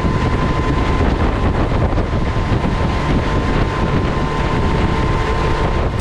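Motorboat running at speed: engine and water rush under heavy wind noise on the microphone, with a steady high whine.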